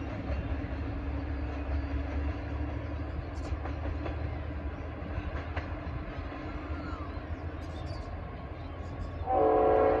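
V/Line N class diesel locomotive running in the distance with a low steady rumble. Near the end its Leslie RS5T multi-chime air horn sounds one loud chord blast, the loudest sound here.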